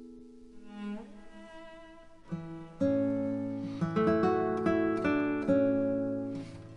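Background music: a gentle plucked-string instrumental, soft at first, with a run of clearly plucked notes coming in about two seconds in.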